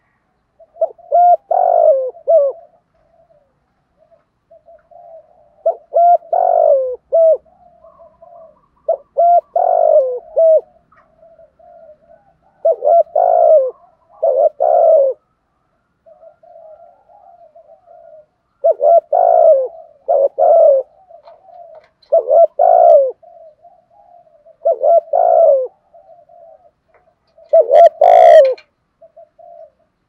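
Spotted dove cooing close to the microphone: about eight loud coo phrases, one every three seconds or so, with soft murmured cooing in between. One phrase near the end carries a sharp click.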